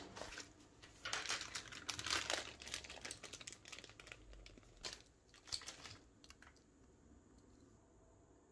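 Clear plastic zip bag holding acrylic keychains crinkling as it is handled, with a run of quick small clicks and rustles that dies away about six and a half seconds in.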